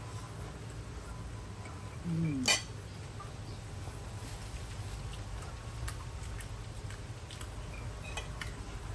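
Metal spoons clinking and scraping against a glass serving bowl and ceramic plates during a meal, with light scattered clicks over a steady low rumble. The loudest moment is a short low sound followed by a sharp clink about two and a half seconds in.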